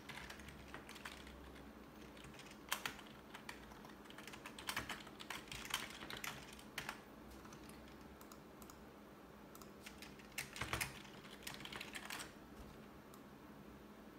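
Computer keyboard being typed on in irregular bursts of key clicks, with a lull of a few seconds in the middle, over a faint steady hum.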